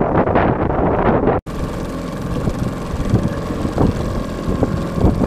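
Wind buffeting the microphone for the first second and a half. After an abrupt cut, a Mariner 4 hp two-stroke outboard runs steadily, driving the boat along, with wind and water noise underneath.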